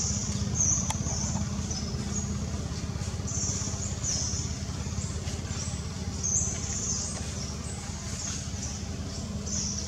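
Outdoor ambience: high-pitched chirping in short bursts repeating about once a second, over a steady low rumble.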